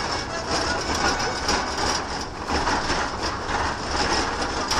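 Road and engine noise inside a moving car's cabin: a steady low rumble with hiss.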